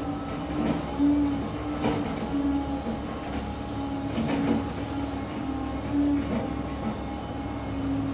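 Volvo crawler excavator working: its diesel engine runs steadily with a pitched whine that cuts in and out as the boom lifts and the machine swings, and scattered metallic clanks.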